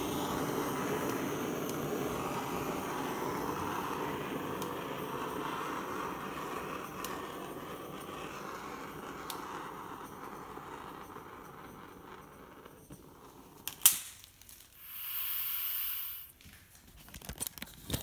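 Handheld butane gas torch burning with a steady hiss as it is passed over wet acrylic paint to bring up cells. It cuts off with a click about 14 seconds in, and a short hiss follows a second later.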